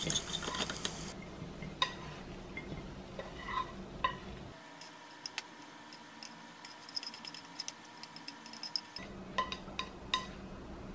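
A wooden spatula stirring and scraping food in a nonstick frying pan, then scraping the pasta out onto a ceramic plate: scattered light clicks and clinks.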